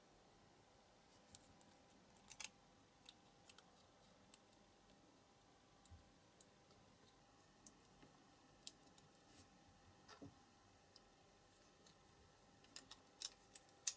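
Small plastic parts clicking and tapping against a diecast toy car's metal body as its clear window glazing and plastic interior are handled and pressed into place by hand. Scattered light clicks, with a louder cluster near the end.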